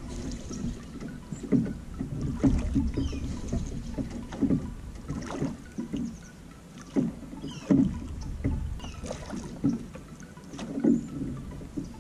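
Drift boat oars being rowed in their oarlocks: irregular knocks and splashes of the strokes, roughly one a second, over a low water rumble.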